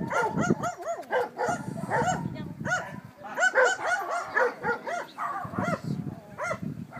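A dog barking repeatedly in short, high-pitched barks, about three a second, with brief gaps.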